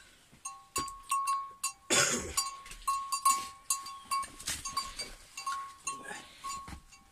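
A small metal bell clinking on and off, each strike ringing with a clear tone. Knocks and clicks sound among the strikes, with one loud scraping rustle about two seconds in.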